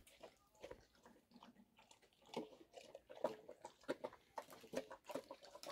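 Bhotia dog eating its dinner: faint, irregular chewing and crunching, getting louder and more frequent about two seconds in.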